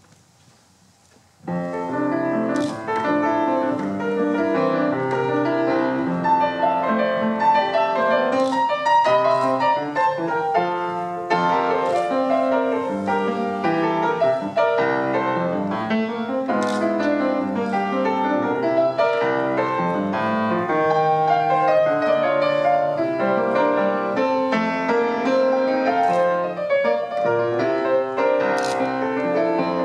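Grand piano playing a gato, an Argentine folk dance, with many notes sounding together in full chords; the playing starts suddenly about a second and a half in.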